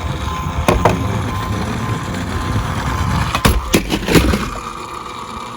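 Die-cast toy minicars rolling over a hard surface with a steady rumble, and several sharp clacks of the little cars knocking against each other or the track, two about a second in and three more near the end. The rumble stops suddenly at the very end.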